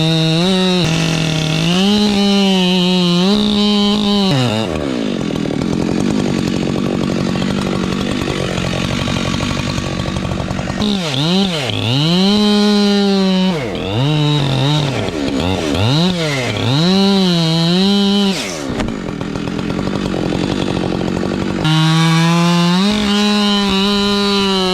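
Two-stroke chainsaw running at high revs and cutting into logs, the engine note sagging and noisier under load, then dropping and picking back up in repeated throttle blips between cuts.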